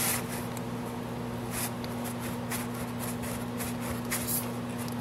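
Faint, short scrapes and clicks of needle-nose pliers working a tight plastic tie rod end off an RC truck's steering hub, spaced irregularly, over a steady low hum.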